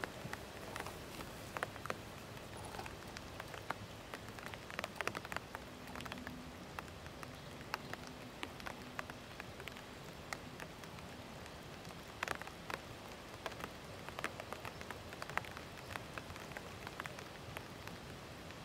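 Outdoor ambience: a steady hiss with scattered light crackles and ticks, some coming in quick clusters.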